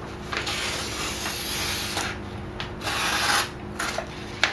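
Razor blade slicing through the folded-back vinyl backing paper, a scratchy rasping with paper rustling, ending in a sharp click.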